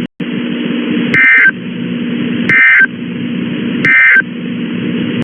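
Three short bursts of Emergency Alert System digital data tones, a harsh two-tone buzz about every one and a half seconds, over a steady hiss and hum of radio static. This is the end-of-message code that closes the alert.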